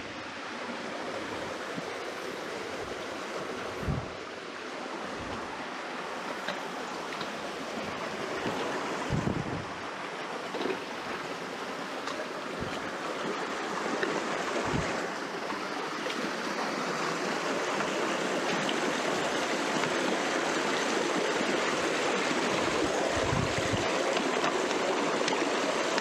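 Shallow mountain stream babbling over rocks and small cascades, a steady rushing that grows louder over the second half. A few brief low thumps sound now and then.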